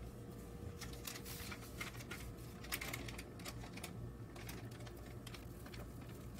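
Baking parchment crinkling in irregular crackles as it is lifted and rolled by hand around a soft meatloaf, starting about a second in.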